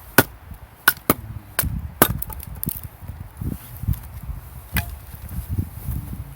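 Firewood being split into kindling. There are five sharp cracks of splitting wood in the first two seconds and another near five seconds, with duller knocks of wood between them.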